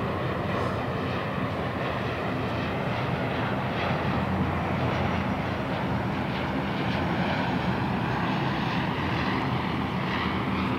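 De Havilland Canada Dash 8-400 turboprop airliner on final approach, landing gear down: its two Pratt & Whitney PW150A turboprops and propellers make a steady drone with a low, even propeller hum.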